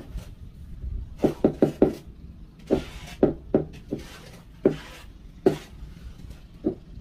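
Floor tile being tapped with a hand tool to bed it into wet mortar: a quick run of four knocks, then single knocks every half second to a second. A light scraping sound comes between some of the taps.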